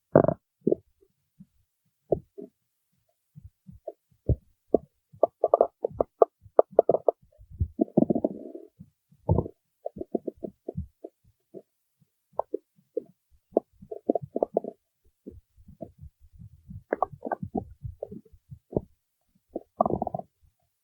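A person's stomach growling: a long run of irregular gurgles and pops, with longer bubbling rumbles about eight seconds in and again near the end.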